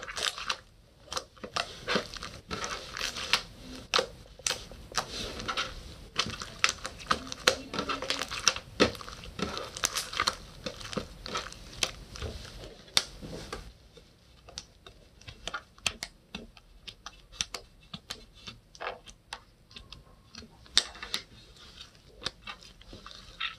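Slime being squished and stretched by hand, giving a busy stream of sticky clicks and crackling pops that thins out to sparser, quieter clicks a little past halfway.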